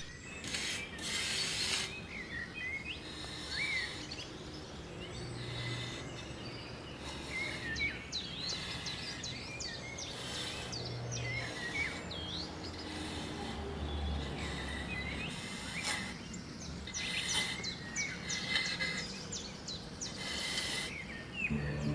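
Small birds chirping many times over a steady outdoor background hiss, with a few brief noisy swells.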